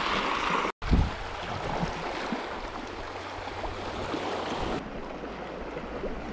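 Sea water washing and lapping around the rock in a steady rush, broken by a brief dropout about a second in and followed by a low thump.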